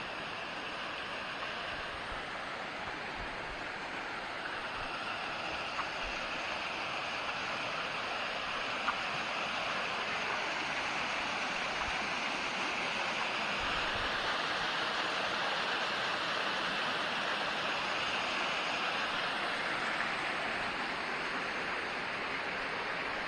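A mountain creek rushing steadily over rocks, an even watery hiss that grows slightly louder partway through.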